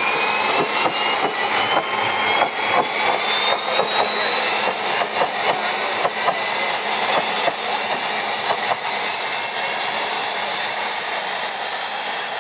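Homemade jet engine running loud, its turbine whine climbing steadily in pitch the whole time as the engine speeds up. Under the whine is a steady rush of combustion with irregular crackles.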